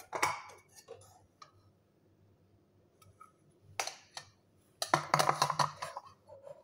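Kitchen utensils clattering: a spatula knocking in a steel wok, then a plastic bowl with a spoon in it being handled and set down close by. Scattered clicks at first, a single knock, then a quick run of knocks and rattles about five seconds in, the loudest part.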